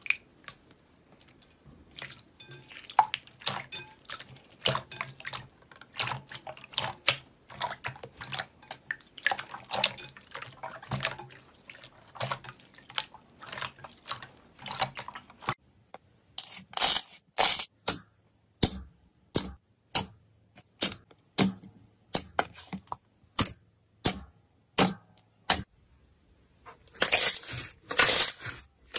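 Wet slime squished and pressed by hands, making wet squelches and popping clicks. They come thick and fast at first, then turn into separate, louder squelches about one a second.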